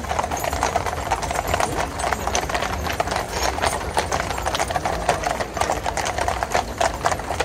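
Shod hooves of a team of harness horses clip-clopping on a tarmac road as they draw a gun carriage, many hoofbeats overlapping into a dense, uneven clatter over a steady low rumble.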